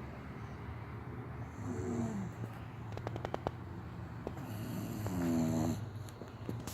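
A bulldog snoring: two long pitched snores with a breathy hiss, about three seconds apart, and a short run of soft clicks between them.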